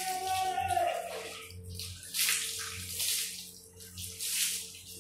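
Pencil scratching across drawing paper in a run of short strokes, each a brief dry hiss, over a steady low background hum.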